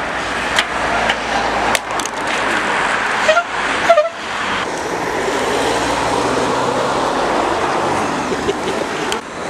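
Race team cars passing on the road, with short horn toots about three and a half and four seconds in, then a steady rushing road noise.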